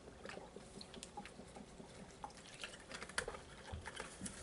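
Faint swallowing and liquid sounds of a drink being gulped from a plastic bottle, with scattered small clicks and crackles that grow more frequent in the second half as the bottle comes down.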